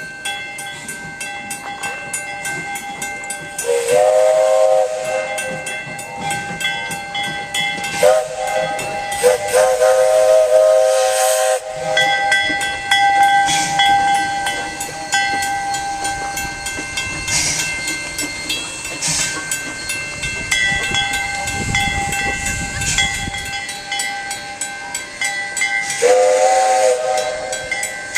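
Steam locomotive whistle sounding four blasts, the third one longest, over a continuous hiss of steam and a steady clicking from the engine.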